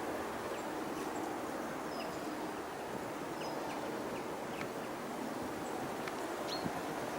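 Scattered short, high, thin call notes from a blue tit, about a dozen, over a steady outdoor wind hiss.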